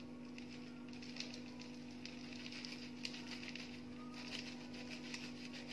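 Faint, repeated soft rustling of charcoal ash being shaken through a plastic sieve, the fine powder sifting down into a dish, over a steady low hum.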